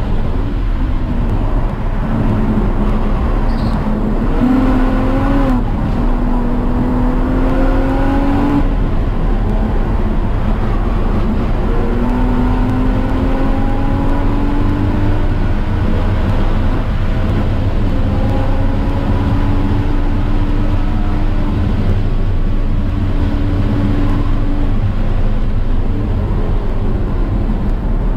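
Car engine under load on a race track, its pitch climbing in long, slow pulls and dropping back a few times, over a heavy, steady low rumble.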